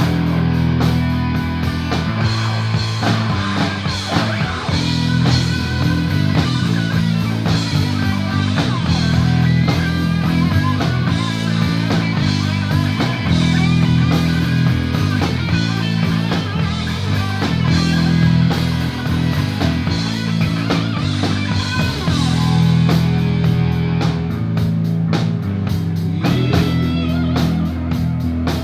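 Rock band playing with electric guitars and drum kit, an instrumental stretch with no singing.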